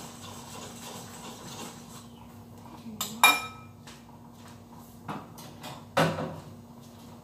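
Kitchen dishes and utensils being handled: a sharp ringing clink just after three seconds in, a lighter knock about five seconds in and a duller clunk about six seconds in, over a steady low hum. A soft hiss stops about two seconds in.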